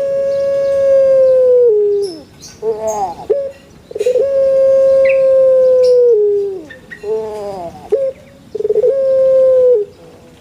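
A dove cooing (manggung): three long, steady coos, each sliding down in pitch at the end and led by a short, quick stuttering phrase.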